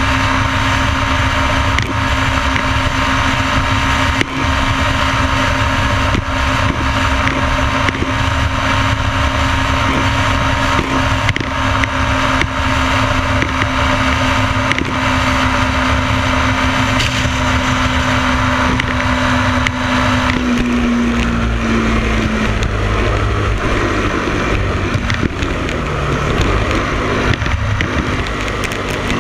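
Motorcycle engine running at a steady cruising speed with wind rushing over the bike-mounted microphone. About twenty seconds in the engine note drops and the sound turns to a lower rumble as the rider eases off the throttle.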